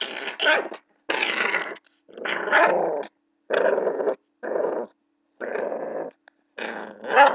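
Blue pit bull puppy growling in play while it wrestles and mouths: a string of about seven short, rough growls with brief pauses between them.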